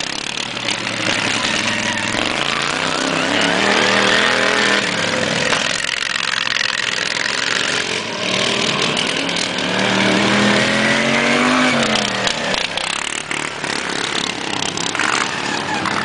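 Modified racing lawn mower engines running hard, their pitch climbing and dropping again and again as the mowers accelerate down the straights and back off into the corners.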